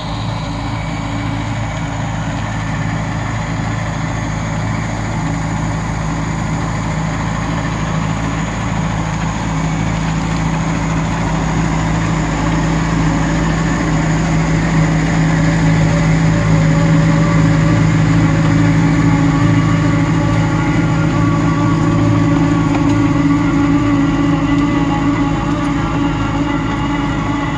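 Tractor engine working under load while driving an Imants 46VX300 rotary spading machine through wet, heavy soil: a continuous mechanical drone with several steady hum tones. It swells louder as the machine comes close past, easing slightly near the end.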